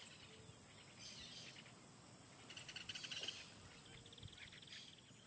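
Faint insect chorus of crickets: a steady high-pitched drone with repeated bursts of rapid pulsed chirping, fading near the end.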